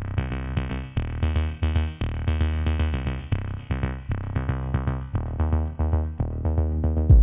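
Background music: electronic track with a steady drum-machine beat, synthesizer chords and a prominent bass line.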